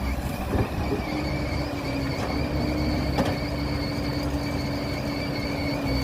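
Heavy diesel earthmoving machinery running steadily with a low rumble and a constant high whine, with a couple of sharp metallic knocks.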